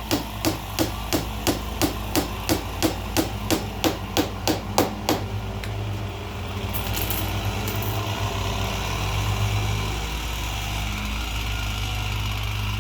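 Light, quick hammer taps, about three a second, driving small nails into a door's glass-stop trim. The taps stop about five seconds in, and a steady low hum runs underneath throughout.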